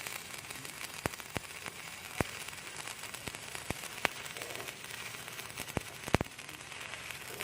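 Electric arc welding on an IWF250 steel wide-flange beam: a steady crackling sizzle from the arc, with sharp pops every second or so, the loudest a little before the end.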